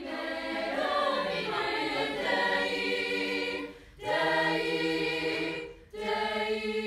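Mixed-voice high-school choir singing a cappella, holding sustained chords in three phrases with short breaks between them, about four and six seconds in.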